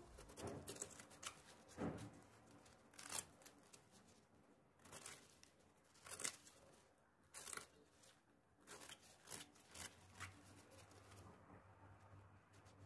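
Serrated knife shaving the fibrous outer skin off an artichoke stem: faint, short scraping strokes, about one a second.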